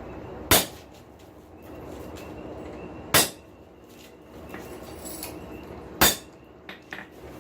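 Three hammer blows on a small round punch, spaced evenly about two and a half seconds apart, each a sharp metallic strike with a brief ring, stamping eye circles into the steel of a forged rasp snake; a couple of light taps follow near the end, over a steady background rumble.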